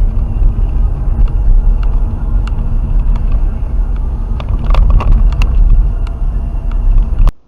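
Car driving, recorded by a dashcam: a loud, steady low rumble of road and engine noise with scattered short knocks and rattles, cutting off abruptly near the end.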